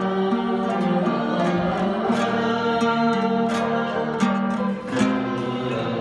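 A man singing long, wavering held notes through a microphone, over an ensemble of struck and plucked string instruments with frequent sharp note attacks.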